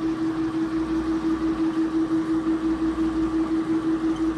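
A steady machine hum holding one constant tone over a hiss, pulsing regularly about four times a second.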